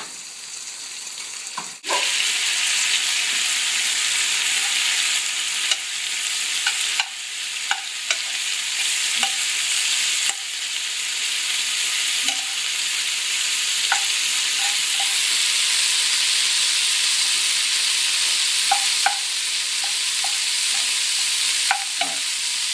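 Food sizzling in a hot pan, a steady hiss with a few light clicks of a utensil against the pan. The sizzle gets suddenly louder about two seconds in.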